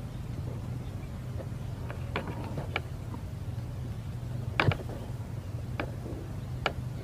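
Scattered faint clicks and ticks from an air rifle and its scope being handled while aiming, one a little louder just past the middle, over a steady low hum.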